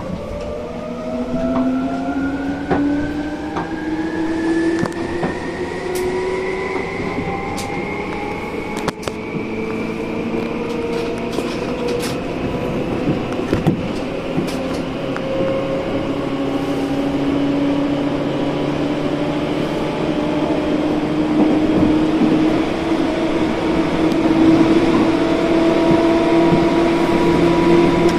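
Seibu Ikebukuro Line electric commuter train heard from inside, accelerating away from a station: the traction motor whine climbs steadily in pitch for the first several seconds, then levels off. Wheel and track clicks and running noise grow louder as the train gathers speed.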